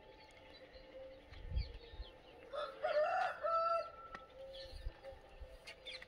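A desi rooster crowing once, a pitched cock-a-doodle-doo that starts about two and a half seconds in and lasts just over a second.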